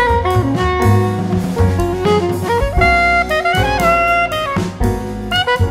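Jazz music, a saxophone-led tune over a drum kit.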